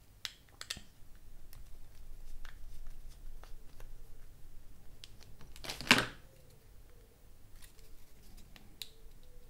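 Small clicks and handling noises of the plastic headband parts of a Beyerdynamic DT252 headphone being worked apart by hand, with one much louder sharp knock about six seconds in.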